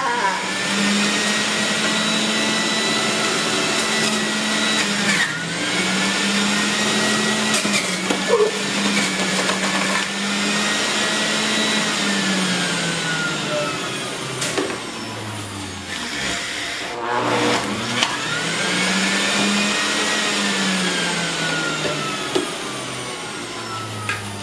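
Breville centrifugal juicer's motor running with a steady whine. Its pitch sags and recovers several times as greens are forced down the feed chute with the pusher.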